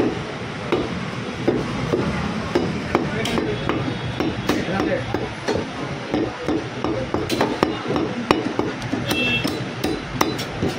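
A butcher's cleaver chopping through goat meat and bone, with sharp chops at irregular spacing, about one to three a second.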